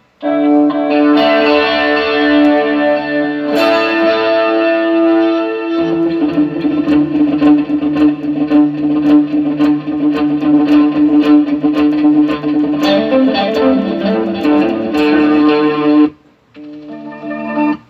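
Electric guitar played through a Fractal Audio FM3 amp modeler and effects unit, tested after the unit's power supply board was replaced: held chords for about the first six seconds, then faster picked notes, dropping away briefly about 16 seconds in.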